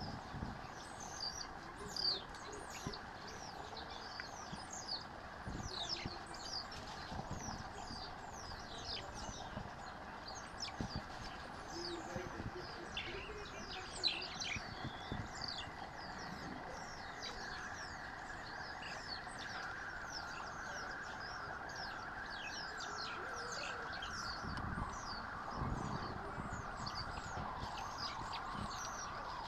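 Many short, high-pitched chirps, each falling in pitch, several a second throughout, over a steady background hum of the bush that grows stronger in the second half. Low rustling and thumps of leaf litter come and go.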